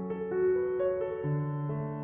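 Background piano music, its notes changing every half second or so over held lower bass notes.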